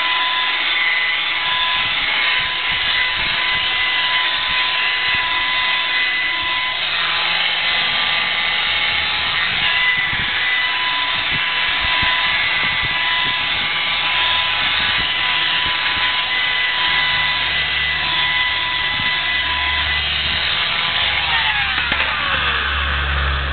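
Rotary polisher with a foam finishing pad running steadily at about 1,000 RPM on car paint, spreading paint sealer, with a steady motor whine. About 21 seconds in, the whine drops in pitch as the polisher winds down.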